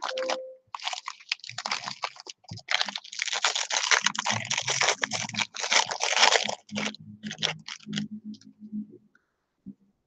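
Wrapper of a Topps baseball card pack crinkling and tearing open as it is handled, then the cards inside slid out with a few short clicks near the end.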